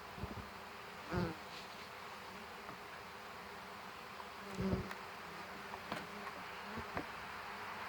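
Honey bees from newly installed packages buzzing steadily in a mass, with a few soft knocks from handling the hive gear, the loudest about a second in and near the five-second mark.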